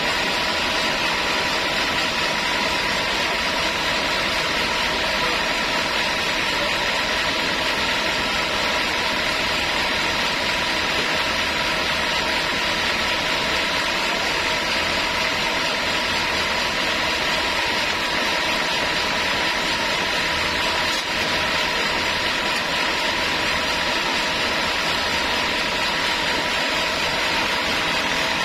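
Sawmill saw running steadily: a constant hiss with a steady whine in it, with no change in pitch or level.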